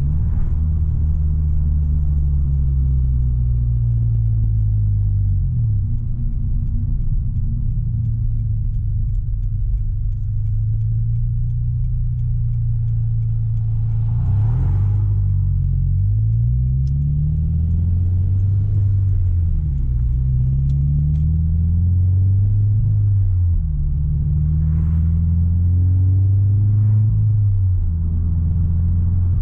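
Subaru BRZ flat-four engine with a loud, deep-toned aftermarket exhaust, heard from inside the cabin while driving. The engine pitch rises and drops several times as the car accelerates and changes gear.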